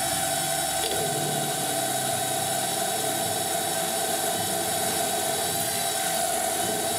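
Wabeco F1200 milling machine running steadily with a steady whine, its spindle turning a small drill bit that is drilling bolt holes in a steam-engine valve chest.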